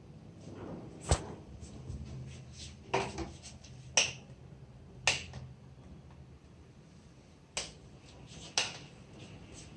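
About six sharp plastic clicks spread over several seconds, with faint handling noise and a low hum between them: a portable rechargeable LED flood light being handled and its switch pressed.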